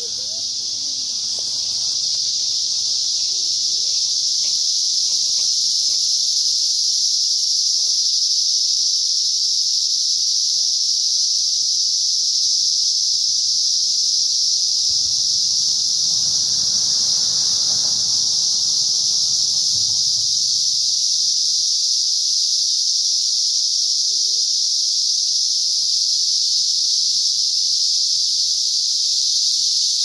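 Cicadas buzzing in a loud, steady, high-pitched drone that never breaks, swelling slightly in the first two seconds. A faint low rustle comes in about halfway through.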